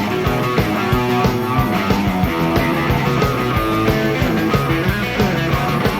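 Rock-and-roll band playing live, with two electric guitars, bass guitar and drums driving a steady beat in an instrumental stretch between sung lines.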